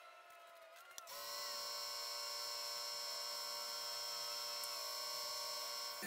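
Small lathe's motor running with a steady whine of several fixed tones as the acrylic pen barrels spin for polishing. About a second in, the whine steps up louder with a different set of tones.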